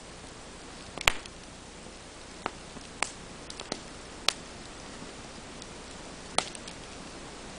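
Wood fire of burning logs crackling: a steady low hiss with irregular sharp pops, the loudest about a second in and just after four seconds in.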